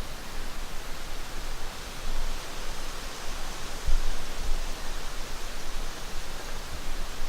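Steady wind noise outdoors: wind in the trees and on the microphone, with a low buffeting thump about four seconds in.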